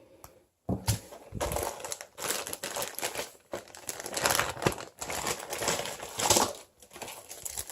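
Plastic packaging crinkling and rustling in irregular handfuls as game pieces are unpacked.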